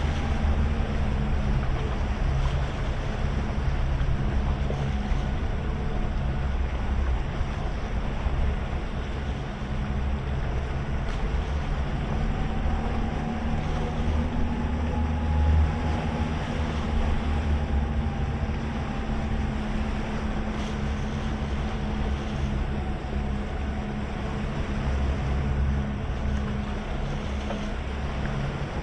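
Outboard motors on a towboat running steadily under load, towing a large cabin cruiser, with water rushing past the hull and wind buffeting the microphone.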